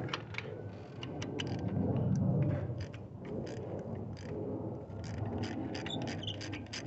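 Ratchet wrench on a spark-plug socket and extension, clicking irregularly as it is worked back and forth to loosen a spark plug, with the rattle of the tool against the engine.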